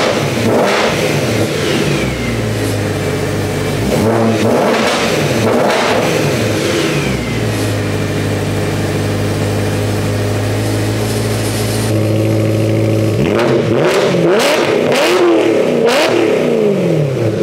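BMW E90 M3 4.0-litre V8 being free-revved in repeated blips through a near straight-piped exhaust, its primary catalytic converters replaced by test pipes and the rear mufflers deleted. The revs rise and fall back a few times, settle to a steady idle in the middle, then rise and fall again in a quick series near the end; it is really loud.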